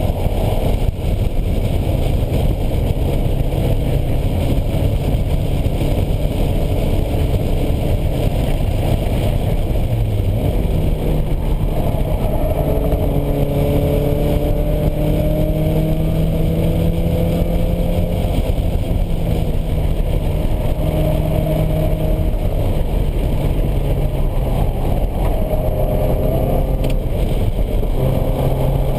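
Normally aspirated four-cylinder engine of a 1986 Porsche 944 driven hard on track, heard from inside the cabin, its revs rising and falling repeatedly. Heavy wind and road rumble run underneath.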